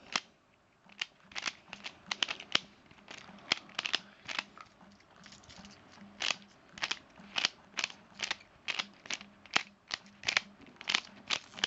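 Pyraminx puzzle being turned fast during a solve: plastic clicks of its faces and tips being twisted, irregular, about two to three a second, with a brief pause near the start.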